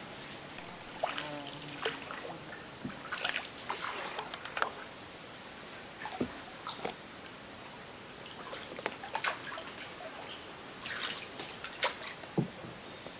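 Water trickling and sloshing around a canoe on a jungle river, with scattered light knocks and clicks. A steady, high-pitched insect buzz runs underneath.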